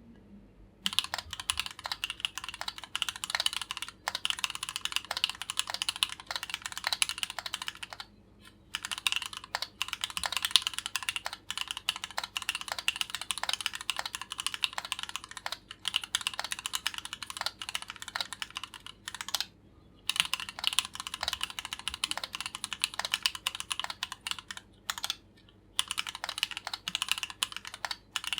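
Keychron Q8 aluminium mechanical keyboard with Gateron Oil King linear switches being typed on quickly and continuously. Typing starts about a second in, with three brief pauses.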